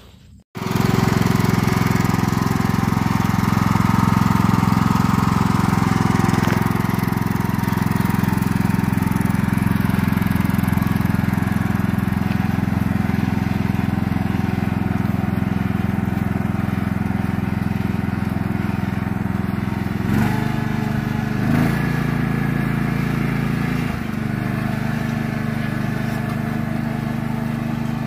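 Riding lawn tractor's small petrol engine running steadily as it drives off towing a logging arch. About twenty seconds in the engine note shifts and there are two light knocks, before it runs steadily again.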